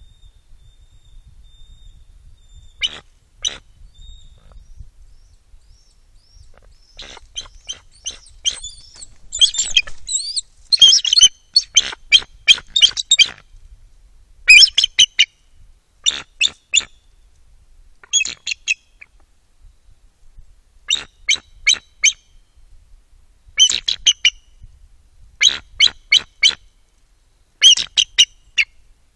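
A pair of bald eagles calling to each other at the nest: high, rapid, chattering notes in clusters of three to five. A pair of sharp notes comes about three seconds in, and the clusters repeat every second or two from about seven seconds in.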